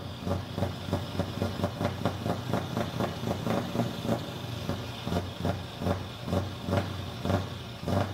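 Scania R500's V8 diesel idling: a steady low hum with an uneven beat of about three louder pulses a second.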